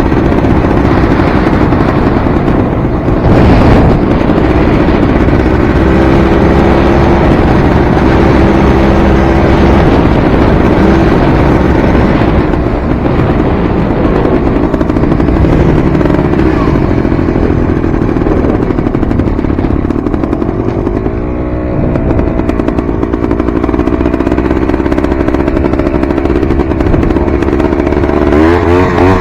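Enduro dirt bike engine running under load as it is ridden, its pitch rising and falling with the throttle. There are sharp revs about three-quarters of the way through and again near the end.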